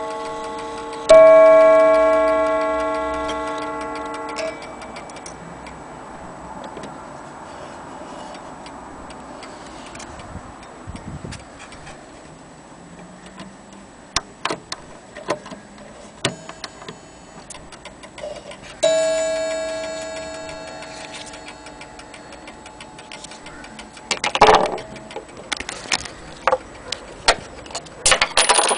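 Coiled wire gong of a German HAS striking mantel clock ringing: a metallic tone with several overtones, struck about a second in and again about 19 seconds in, each fading slowly, the first cut short after a few seconds. Light clicks between the strikes, and louder knocks and rattles near the end.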